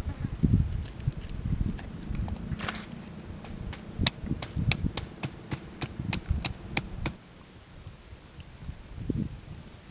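A wooden pestle pounding chilies and garlic in a wooden mortar: dull thuds, then a run of sharp knocks about three a second that stops about seven seconds in.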